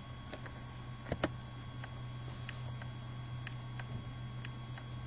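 Faint ticking, roughly two ticks a second and a little uneven, with a slightly louder double tick about a second in, over a steady low hum.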